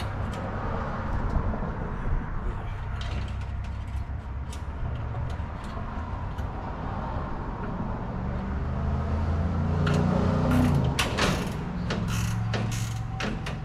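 Nylon zip ties ratcheting as they are pulled tight through a plastic grille insert, with clicks and plastic creaks, several quick strokes near the end. A low steady hum runs underneath.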